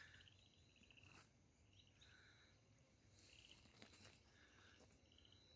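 Near silence: faint outdoor ambience with a few soft, distant bird chirps every second or so.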